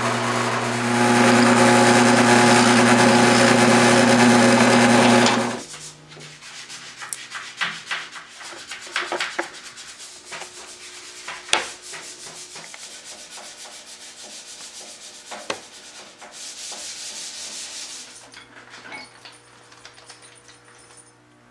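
Delta benchtop drill press running with its bit drilling through a taped-together piece of teak, cutting off after about five seconds. Quieter scattered clicks, taps and rubbing of hand work on wood follow, with a short hiss near the end and a low hum at the end.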